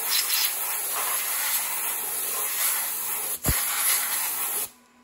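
Compressed-air blow gun hissing steadily as it blows chips and coolant off the milled part and fixture plate. There is a sharp metallic tap about three and a half seconds in, and the air cuts off suddenly near the end.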